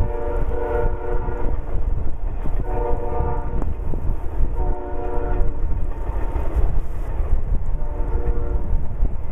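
Union Pacific freight locomotive's air horn sounding a series of blasts, about one second each and roughly two seconds apart, heard from the head end of the train. Underneath, the steady low rumble of double-stack container cars rolling past.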